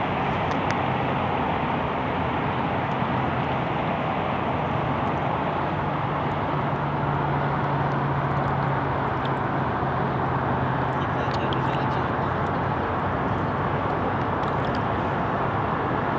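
A steady engine drone with a low hum, holding an even level.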